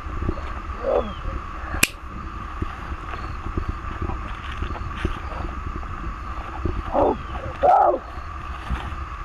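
A child's short growling grunts, once about a second in and twice near the end, imitating a gorilla, over a steady rumble of wind on the microphone. A single sharp click comes about two seconds in.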